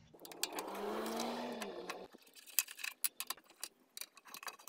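A steady whirring hiss for about two seconds, then a run of small, irregular clicks and taps as the electronic components and fasteners inside a BMW i3 high-voltage battery pack are handled and worked loose by hand.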